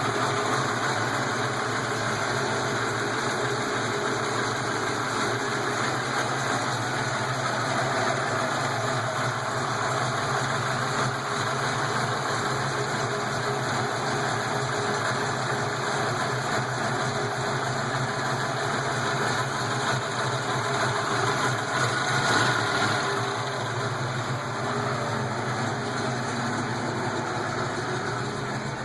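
331 V8 engine idling steadily while warming up from a cold start, with lifter noise (valve lifters ticking).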